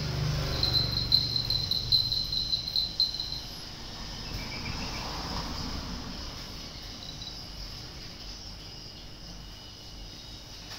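An insect trilling: a high, fast-pulsing trill lasts about three seconds, starting about half a second in, over a faint steady high hum.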